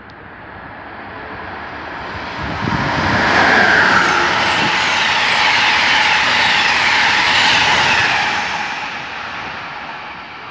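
Amtrak passenger train, an ACS-64 electric locomotive hauling Amfleet coaches, passing through the station at speed: the rush of wheels on rail builds over about three seconds, stays loud for about five seconds, then fades as the train recedes.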